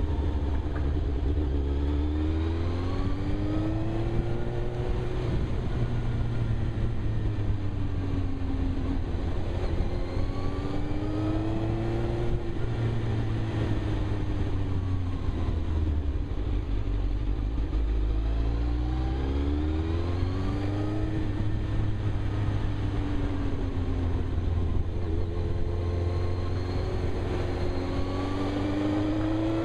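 Suzuki GSX-R 1000 inline-four motorcycle engine under way, its pitch rising and falling again and again as the rider accelerates and eases off, heard from a helmet-mounted camera over a steady low rumble.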